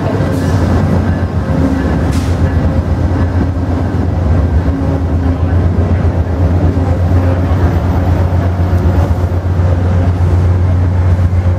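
VIA Rail passenger coaches rolling past close by as the train arrives at the platform: a steady, loud, low rumble of wheels on rail, with a couple of brief clicks in the first few seconds.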